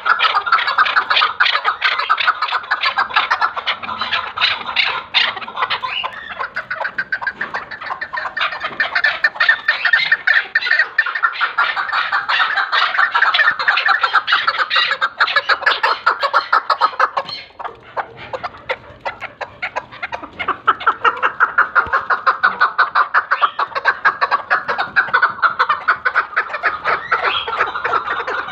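Chukar partridge calling, a long run of rapid repeated clucking notes that goes on almost without a break, dropping to a brief lull a little past the middle before picking up again.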